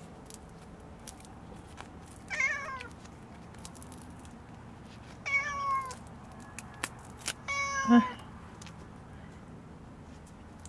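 Tabby-and-white domestic cat meowing three times, each meow short and dropping in pitch at its end, with a few short clicks between the second and third.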